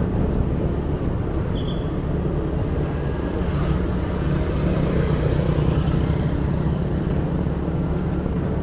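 Motorcycle engine running steadily while riding along a street, with wind and road noise over the microphone.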